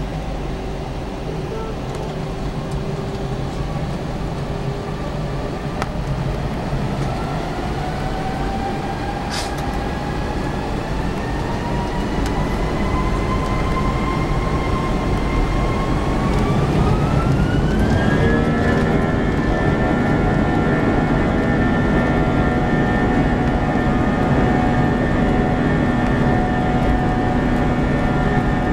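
Airbus A321 jet engines spooling up for takeoff, heard from inside the cabin. A whine rises slowly in pitch, climbs quickly about 17 seconds in and then holds steady at takeoff thrust, over a rumble that grows louder as the aircraft accelerates down the runway.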